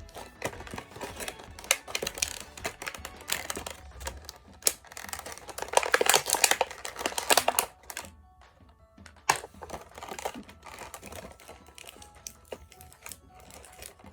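Small plastic toy pieces and packaging being handled: a run of irregular clicks and rattles, with a louder stretch of crinkling and rattling about five to eight seconds in.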